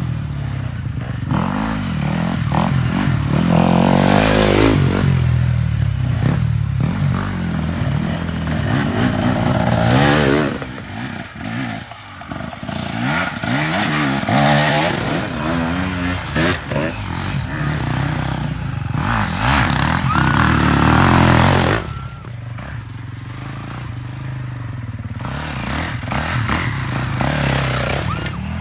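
Enduro dirt bikes riding past one after another on a rough woodland trail, their engines revving up and down with the throttle. The engine sound drops away for a moment about twelve seconds in and eases off again past the twenty-two second mark as one bike gets farther off before the next comes.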